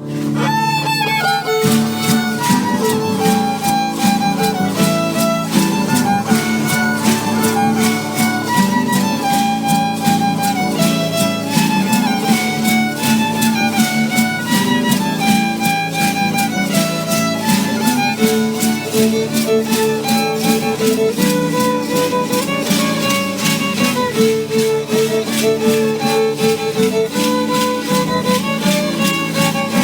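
Violin playing a lively melody over guitar accompaniment with a steady, even beat.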